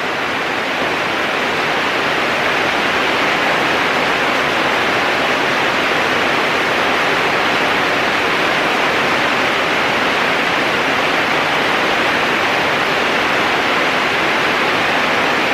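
Heavy rain falling hard and steadily, a loud even hiss with no breaks.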